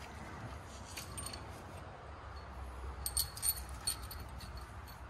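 Light metallic clinks and jingles of a connecting-rod big-end cap and its bolts from a Land Rover 204DTD Ingenium diesel being pulled free and handled, with a cluster of sharp clicks about three seconds in. This is the cap coming off the big-end bearing that had been knocking.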